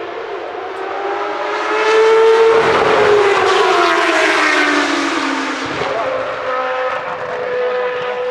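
Benetton B190 Formula One car's Ford-Cosworth HB V8 at high revs, passing close by. It is loudest about two to three seconds in, its note falls in pitch as it goes past, then holds a steady higher note near the end.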